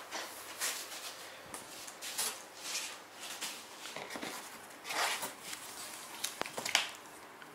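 Cardboard box flaps and a foam packing insert being handled and lifted out, irregular rustling and scraping of cardboard with a few light knocks.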